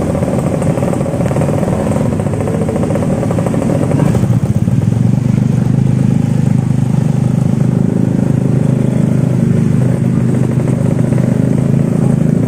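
Motorbike engine running steadily while riding through floodwater, with other motorbikes close by; the low engine drone gets louder about four seconds in.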